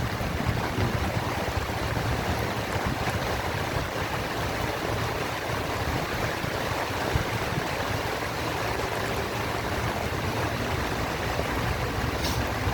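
Steady rain falling: an even, unbroken hiss, with a faint sharp tick near the end.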